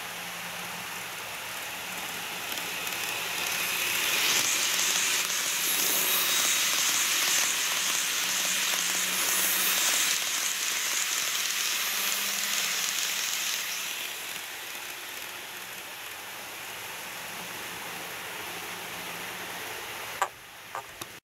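KATO 185 series model train running past on its track, a hissing rolling noise of wheels and motor that grows about three seconds in, is loudest for about ten seconds, then fades. A few light clicks near the end.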